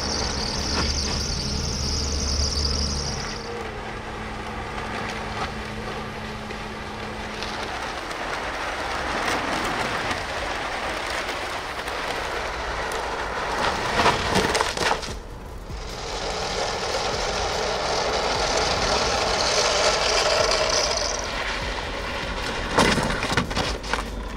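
A VW Caddy van driving on a test track, with steady road and vehicle noise that changes at several cuts. A few sharp knocks or cracks sound near the middle and again near the end.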